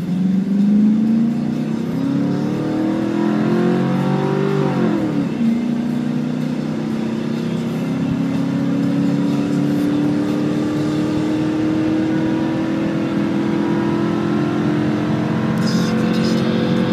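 Pickup truck's engine at full throttle on a drag-strip run, heard from inside the cab. The revs climb for about five seconds, drop sharply at a gear change, then climb slowly and steadily for the rest of the pass.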